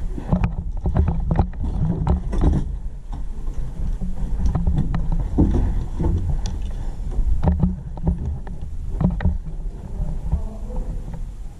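Low rumbling noise with scattered sharp clicks and knocks, thickest in the first few seconds and again in the middle.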